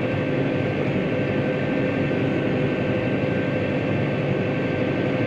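Tractor engine running steadily under load while pulling a plough, an even drone with a constant pitch.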